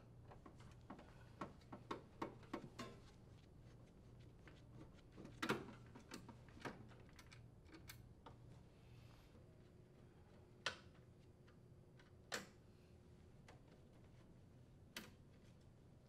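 Faint, scattered clicks and taps of a driver and screws against the sheet-metal panels of a heat pump unit as screws are taken out, with a few sharper metallic clinks about five, ten and a half, twelve and fifteen seconds in.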